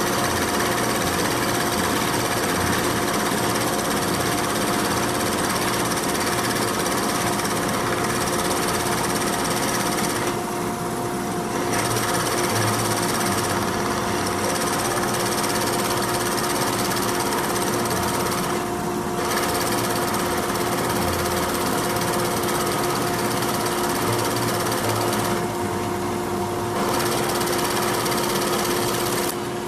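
A woodworking power tool running steadily with a constant motor hum, easing briefly three times.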